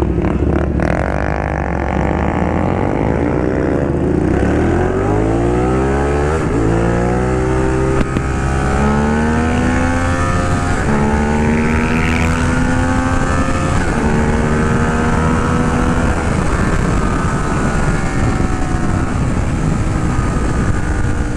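Ducati Monster 821's Testastretta V-twin accelerating hard in a short burst. Its note climbs through several upshifts over about the first nine seconds, then runs steadier at speed, with wind rushing over the rider-mounted camera.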